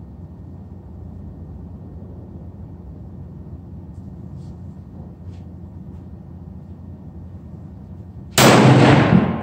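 A single loud rifle shot from a Browning AB3 bolt-action rifle about eight seconds in, fading over most of a second, after a steady low background hum.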